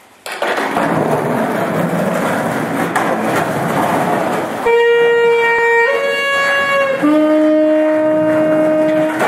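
Skateboard wheels rolling with a loud rough rushing over a concrete floor for about the first four and a half seconds. Then a saxophone plays three long held notes, the second higher and the third lower.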